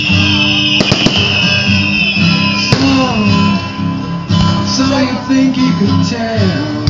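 Fireworks display: a few sharp bangs about a second in and another near three seconds, with a high falling whistle that cuts off at that second bang. Loud music with guitar and singing plays throughout.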